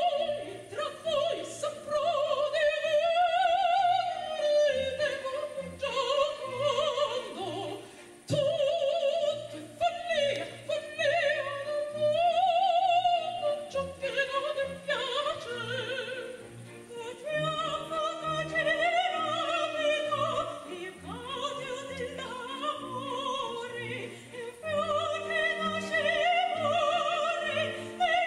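Two women singing an operatic duet with vibrato, accompanied by an orchestra of bowed strings.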